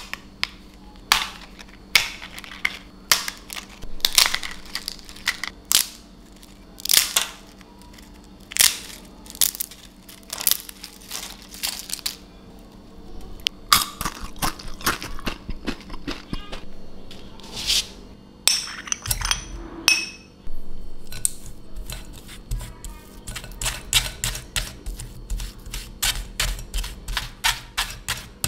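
Crisp, thin fried crepe layers snapped and crackled by hand, one sharp crack after another for the first half or so. In the last third, a spoon scrapes and presses mashed potato through a metal mesh sieve in quick rhythmic strokes.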